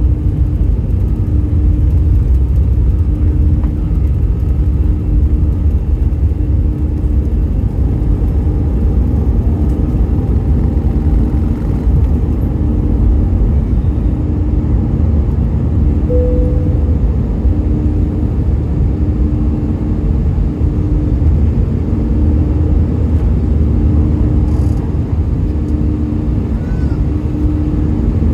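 Airbus A320's jet engines at takeoff thrust, heard from inside the cabin: a loud, steady rumble through the end of the takeoff roll, liftoff and initial climb.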